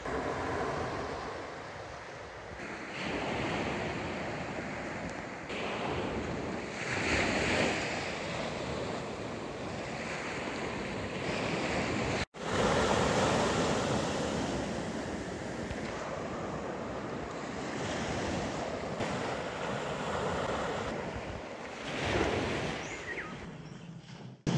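Small waves breaking and washing up on a sandy beach, swelling and easing every few seconds, with some wind on the microphone.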